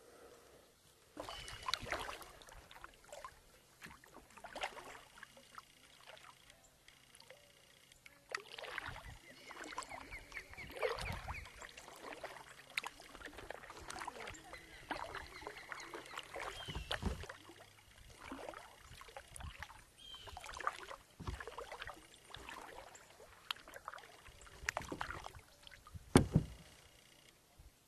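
Kayak and paddle being handled: irregular knocks, scrapes and water sounds against the hull, with one louder thump near the end.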